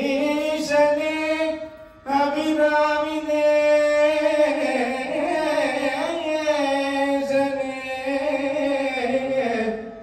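A man singing Carnatic devotional music: long held phrases with winding, ornamented pitch bends, with a short break for breath about two seconds in.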